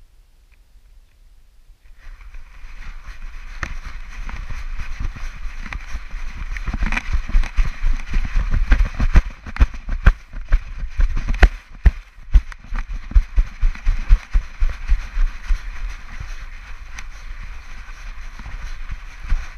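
Wind rushing over a camera strapped to a running dog, with repeated heavy thumps as the dog's strides jolt the harness and camera housing. The rushing starts about two seconds in, and the thumps come thickest in the middle.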